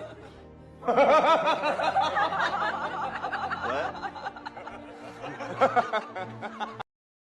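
Music with a laughing, snickering voice over it, wavering in pitch; it starts about a second in and cuts off abruptly to silence just before the end.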